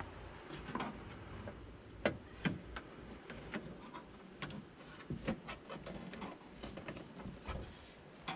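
Irregular clicks and knocks of plastic and metal as a Nissan Rogue's inner door panel is worked loose and pulled off the door, its gasket sticking a little. The sharpest knocks come about two seconds in and again a few seconds later.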